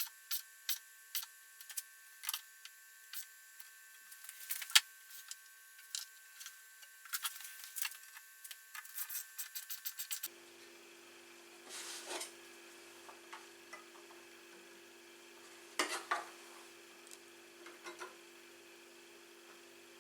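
Light clicks, taps and rubbing from hand work on a workbench, with one sharper knock about five seconds in. About halfway through, the background changes to a steady low hum and the clicks become sparser.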